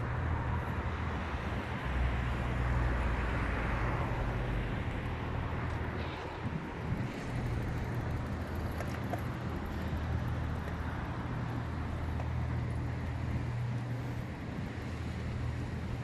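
Wind buffeting the phone's microphone over a steady low rumble of city traffic. A broad hiss swells and fades between about two and four seconds in.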